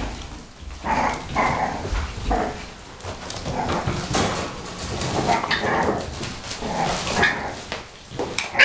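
Six-week-old bulldog puppies barking, yipping and whimpering in short, repeated calls as they play, with one sharp, loud call near the end.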